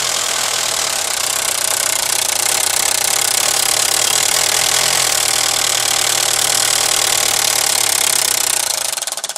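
VW Passat 1.8-litre turbo four-cylinder engine running steadily with its cam cover off, camshafts and cam chain exposed. The owner traces the engine's noise to a lack of oil pressure, from either a bad oil pump or a bottom end so sludged up that no oil gets through.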